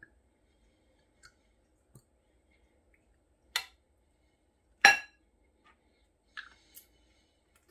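Sharp glass clinks as glass sauce bottles and a spoon are handled against a glass mixing bowl: two loud ones a little over a second apart mid-way, the second the loudest and ringing briefly, then two lighter clicks near the end.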